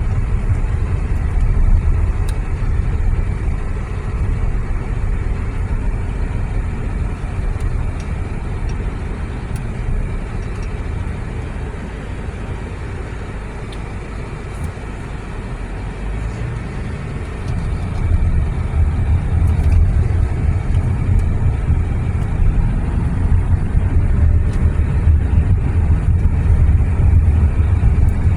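Car cabin noise while driving: a steady low road and engine rumble. It eases off around the middle and grows louder again about two-thirds of the way through.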